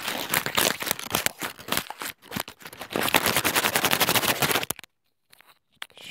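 A ball of crumpled paper scrunched and squeezed right up against a microphone: dense, rapid crackling with a short break about two seconds in, stopping about five seconds in.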